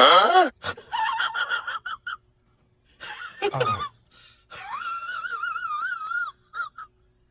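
A high-pitched voice in a run of calls: a short falling cry at the start, a steady high call, a call that falls to a low moan about halfway, then a long high warbling call.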